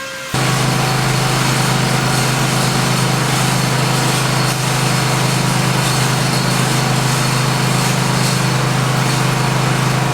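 A small engine running steadily at constant speed, starting and stopping abruptly.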